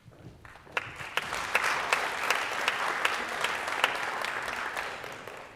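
Audience applauding: many hands clapping together, building up within the first second and dying away near the end.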